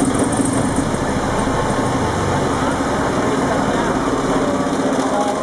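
Old multi-cylinder marine diesel engine with open valve gear, running steadily.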